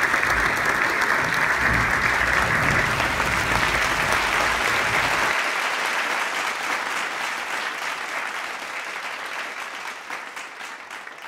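Audience applauding, steady at first and then gradually fading away over the last several seconds.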